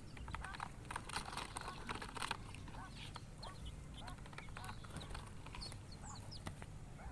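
Japanese quail chicks peeping: many short, high chirps overlapping throughout, with scattered light taps.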